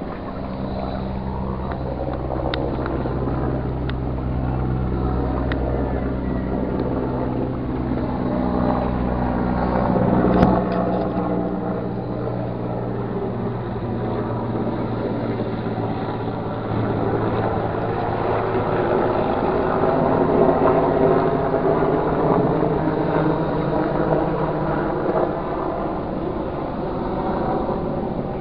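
A steady engine drone with a constant low hum that fades about two-thirds of the way through, leaving a broad rushing noise, with a few faint ticks and one sharper click.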